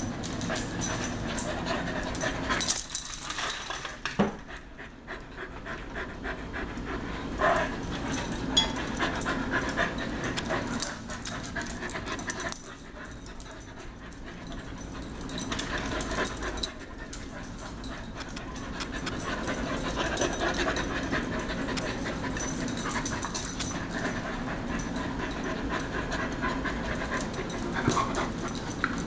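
A Carolina Dog and a collie play-fighting, panting heavily as they mouth at each other, with a few sudden sharp sounds scattered through the scuffle.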